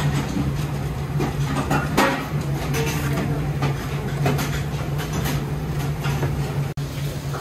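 Steady low hum of kitchen equipment, with scattered knife taps and clicks as grilled eel is cut and laid on rice in wooden steaming boxes.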